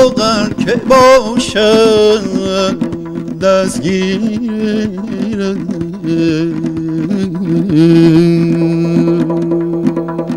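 Male voice singing a wordless Persian vocal line, with fast wavering ornaments at first and long held notes later, over a steady run of tombak goblet-drum strokes.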